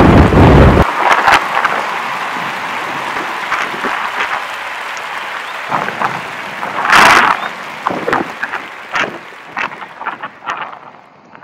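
Riding a loaded touring bicycle: wind buffeting the microphone at first, then, after a sudden change, a steady hiss of riding with many crackling clicks and rattles. There is one louder rush about seven seconds in, and the sound fades toward the end.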